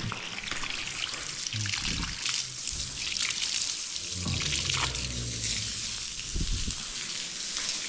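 Water spraying and splattering as dogs are hosed down, a steady hiss.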